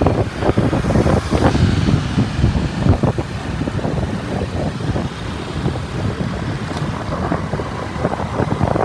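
Motorbike riding through city traffic: engine and road noise running steadily, with wind buffeting the microphone in an uneven low flutter.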